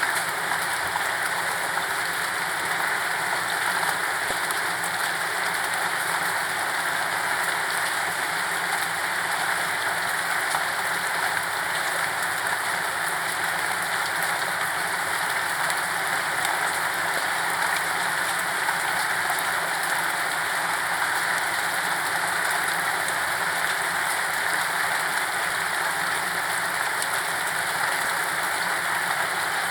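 Steady rain falling on a surface, an even hiss dotted with many small drop patters, without thunder or music.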